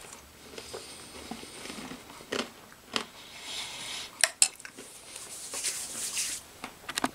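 Someone eating: chewing food with crackers mixed in, and a plastic spoon clicking and scraping against a stainless steel tray bowl several times, the sharpest two clicks a little over four seconds in.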